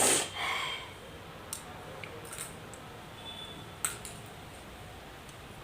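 A short, sharp nasal breath at the start, as a nose is tickled to bring on a sneeze, then a few faint clicks and taps.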